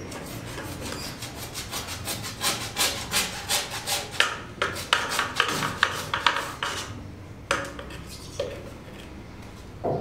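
Quick back-and-forth hand sanding or scraping strokes against a hard surface, about three a second, stopping about seven seconds in.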